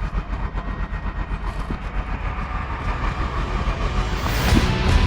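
An engine running with an even, fast low chugging. Music comes in near the end.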